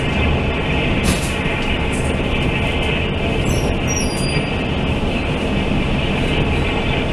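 Steady running noise of a Taiwan Railway Fuxing express passenger car travelling at speed, heard from inside the carriage, with a few brief high squeaks about three to four seconds in.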